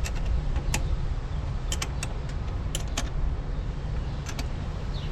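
Scattered light metallic clicks and taps of hand tools working on a battery cable's ground connection, over a steady low rumble.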